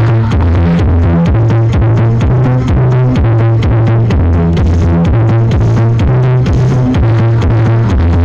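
Electronic dance music with a heavy, booming bassline and a steady, fast drum-machine beat, played very loud through a mobile sound-show speaker system.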